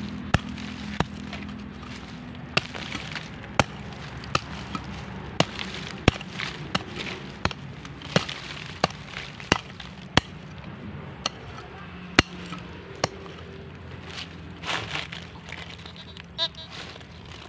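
Small hand hoe chopping into soil and leaf litter: a string of sharp strikes, about one a second, over a steady low hum.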